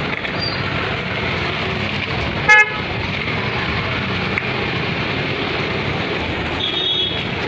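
Steady street din of a busy market, with one short vehicle horn toot about two and a half seconds in.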